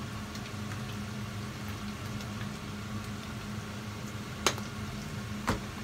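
Steady kitchen background hiss with a low hum running under it, and two sharp knocks about a second apart near the end as objects are handled on the counter.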